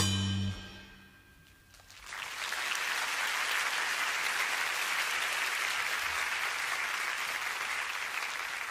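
The band's final held chord cuts off and rings away. After about a second of near silence, the concert audience breaks into steady applause.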